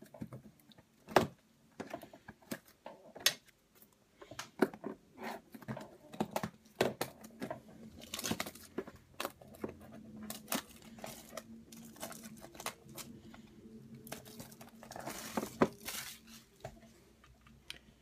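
Clear plastic shrink-wrap being picked at, torn and peeled off a Panini Infinity trading-card hobby box, crinkling in short irregular bursts with scattered sharp clicks and taps.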